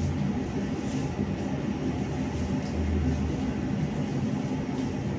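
BKM-60102 tram running between stops, heard from a passenger's seat: a steady low hum from the drive over the rumble of the wheels on the rails.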